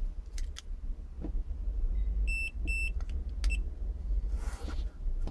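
Small electronic buzzer of an iTag Bluetooth key-finder tag giving two short, high beeps about half a second apart, amid light plastic clicks from the tag being handled.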